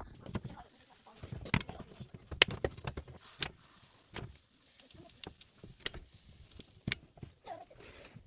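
Irregular sharp clicks and knocks, about one or two a second, over a faint steady hiss.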